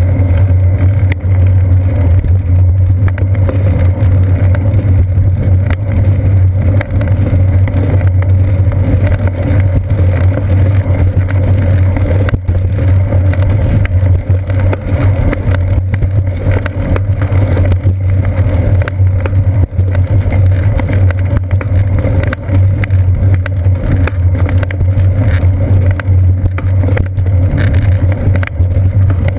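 Steady, loud low drone of a bicycle ride picked up by a seat-post-mounted GoPro Hero 2: wind on the camera and road vibration through the mount, unbroken throughout.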